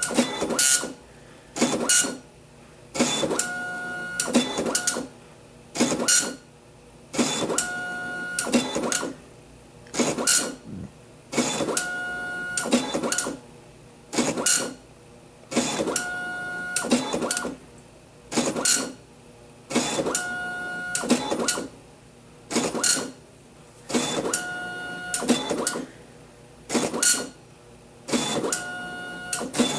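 Apple ImageWriter II dot-matrix printer printing a graphic. The print head makes repeated passes, each a loud buzz with a steady whine that starts with a sharp click, with a short pause between passes, about one every two seconds.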